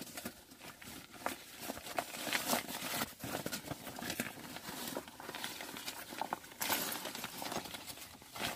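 Thin fabric rain cover rustling and crinkling as it is handled and pulled off an air seat cushion, in irregular small scrapes and crackles.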